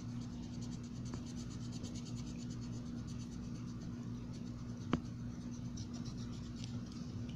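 Soft scratching of a drawing tool on paper as a picture is coloured in by hand, over a steady low hum, with one sharp tap about five seconds in.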